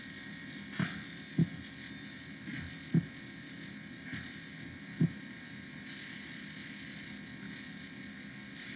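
A computer mouse clicking about four times at uneven intervals, heard as soft, dull clicks picked up by the computer's microphone over a steady hiss.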